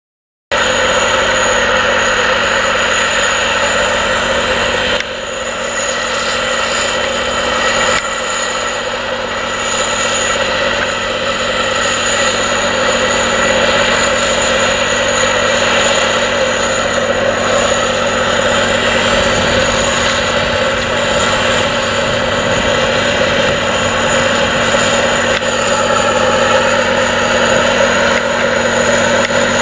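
Challenger MT865C tracked tractor's diesel engine running steadily under load while pulling a reversible plough through the soil. The sound comes in after a brief silence at the very start, drops in level about five seconds in and comes back up about eight seconds in.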